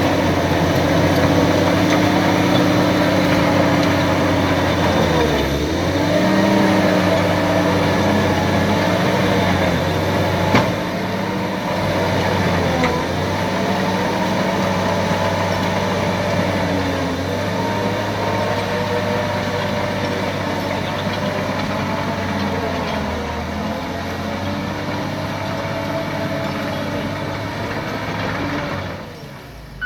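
HBXG SD5K crawler bulldozer's diesel engine running, its pitch dipping and rising several times, with a single sharp knock about ten seconds in. The engine sound drops away just before the end.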